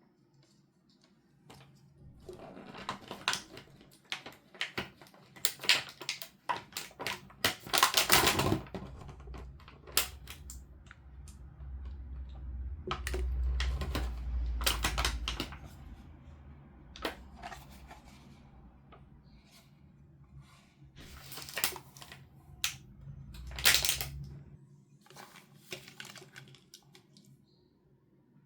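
Irregular clicks, taps and rustles of plastic toy packaging and small toy pieces being handled, with a low rumble of handling through the middle.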